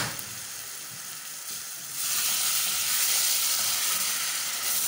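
Tomato, pepper and onion sauce frying in oil in a steel pot, sizzling; about two seconds in the sizzle grows sharply louder as a little water goes into the hot pan and steam rises.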